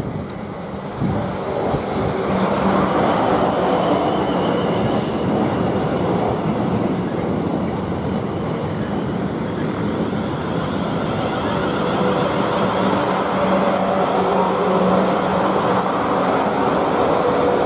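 Two coupled Class 444 Desiro electric multiple units running into the platform past the camera as they arrive to stop. The sound is a steady rumble of wheels and running gear with a low hum, growing louder over the first two seconds and then holding steady. There is one sharp click about five seconds in.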